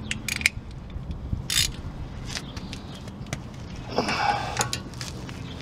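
Metal clicks and scrapes of a socket wrench being fitted onto a brake caliper bracket bolt and pulled on, with a brief scrape about a second and a half in and a longer one about four seconds in. The bolt is too tight to break loose with the ratchet.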